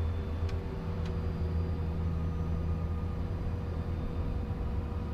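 Steady hum of a Cessna Citation CJ3+ jet's Williams FJ44 turbofan idling after start, heard inside the cockpit, with a few constant tones over the low drone. Only one engine is running; the second is still to be started with a cross-generator start.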